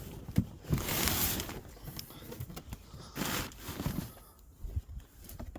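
Handling noises: a sharp click, then two longer scraping, rustling stretches, as parts of the ATV are handled to get at the seat-sensor plug.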